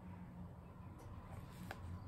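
A small bottle and its cap being handled, giving a couple of faint clicks over a steady low hum.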